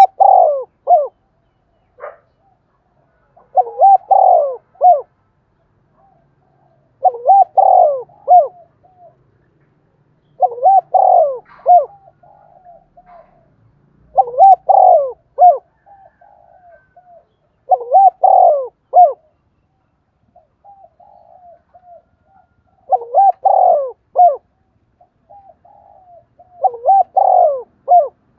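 Spotted dove cooing: a phrase of a few low coos about every three to four seconds, eight phrases in all, with softer short notes in some of the gaps.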